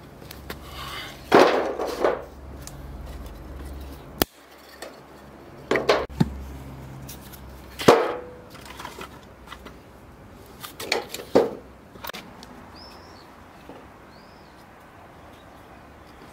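A series of sharp knocks and clatters, hard objects struck or set down, in irregular clusters, the loudest about a second and a half in and near eight seconds.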